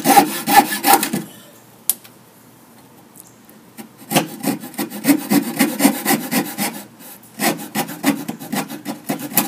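Coping saw blade rasping back and forth through painted wood trim in quick, even strokes, cutting along the traced profile for a coped joint. The sawing stops about a second in, resumes a few seconds later, and pauses briefly again near the seven-second mark.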